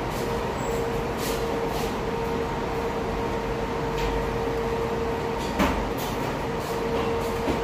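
Steady restaurant room noise with a constant hum, and a fork clinking and scraping against a plate several times while spaghetti is twirled and eaten.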